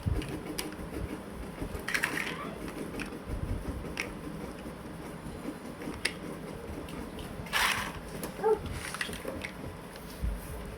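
Plastic building blocks being handled and fitted together: scattered sharp clicks, with louder rattling about two seconds in and again near eight seconds.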